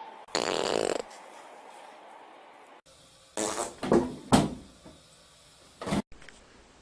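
A loud, raspy fart lasting under a second, about half a second in. After a cut, there is a run of short, sharp noises between about three and four and a half seconds, and another brief one near six seconds.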